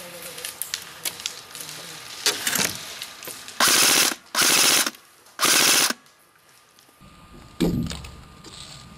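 Three short full-auto bursts from a nearby airsoft gun, each about half a second long, coming a little past the middle, after a run of scattered sharp clicks. A single dull thump near the end.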